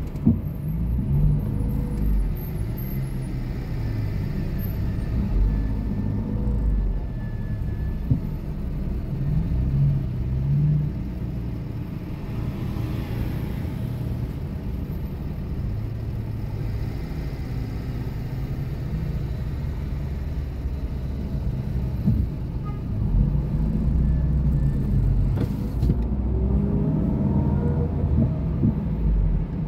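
Low, steady rumble of a car's engine and road noise heard from inside the cabin while driving slowly in city traffic, with a few brief knocks.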